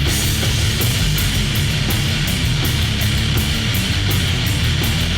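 Loud heavy rock music with distorted guitars and a fast, steady drum beat.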